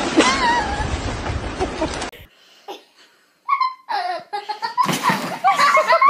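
For about two seconds, a steady rush of wind and choppy water noise. Then, after a brief quiet, a person laughs and giggles in short bursts that come faster near the end.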